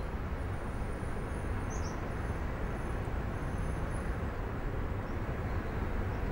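Steady outdoor ambience: a low rumble and hiss of distant city traffic, with a brief high chirp about two seconds in.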